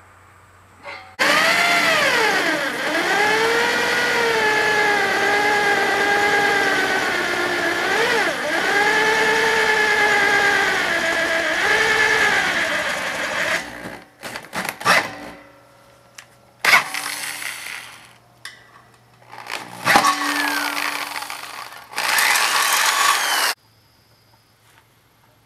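Handheld electric drill running under load, its motor pitch sagging and recovering repeatedly as the bit cuts through metal. Then several shorter bursts as the drill is started and stopped.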